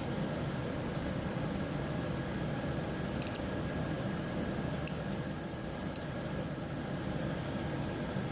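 A handful of small, sharp metallic clicks and taps from padlock pins and small tools being handled, over a steady background hum.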